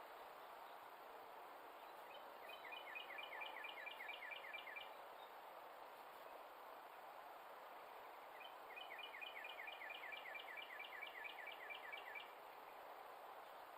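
An animal calling in two runs of short falling chirps, about five a second, the first run lasting about two and a half seconds and the second nearly four, over a steady faint hiss.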